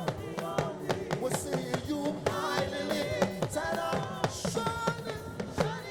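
Live band playing upbeat praise music with busy, rapid drumming and pitched instruments, with some singing mixed in.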